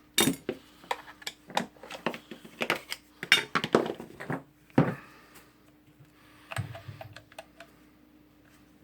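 Irregular clicks and taps of small hard parts of an angle grinder being handled during disassembly, dense for about the first five seconds, then a few fainter ones about seven seconds in.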